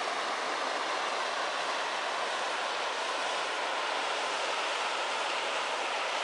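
Waterfall and cascading mountain creek: a steady, even rush of falling water.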